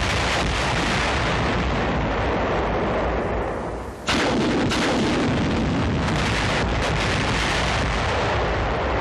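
Volley of 7.2-inch T-37 demolition rockets detonating against a concrete pillbox: a continuous din of blasts that eases off toward about four seconds in, then a sudden loud blast and more explosions.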